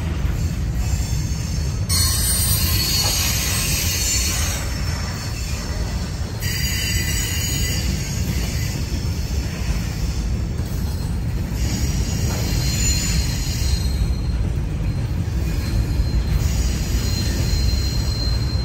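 Freight cars rolling past on steel wheels: a steady low rumble with patches of high hiss that come and go, and a faint thin wheel squeal in the later seconds.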